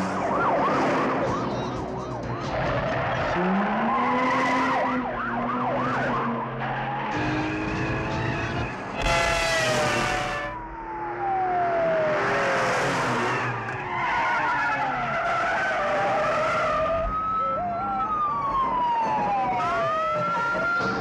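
Car chase: tyres screeching and engines revving as cars swerve at speed, with police sirens wailing. A siren's falling and rising wail stands out near the end.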